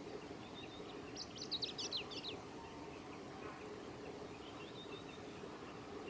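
Male chestnut-eared bunting singing one short, rapid, jumbled song phrase that starts about a second in and lasts just over a second. Faint scattered high notes follow, over a steady low background hiss.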